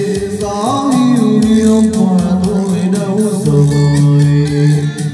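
A Vietnamese ballad with singing over a steady beat, played loud through loudspeakers driven by a CA9 power amplifier as a demonstration of its sound.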